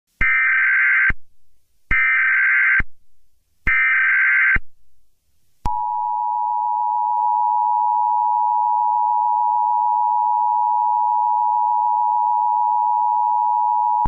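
Emergency Alert System broadcast signal: three short bursts of SAME digital header data, each just under a second, then, from about five and a half seconds in, the steady two-tone EAS attention signal held for about eight seconds.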